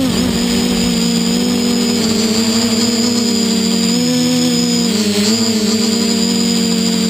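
Multirotor's SunnySky 2212 980 kV brushless motors spinning 10-inch propellers, humming steadily in a low hover. Their pitch dips briefly about four seconds in and wavers about a second later.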